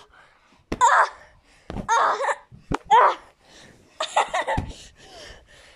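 A child laughing in short breathy bursts, with a few sharp knocks in between.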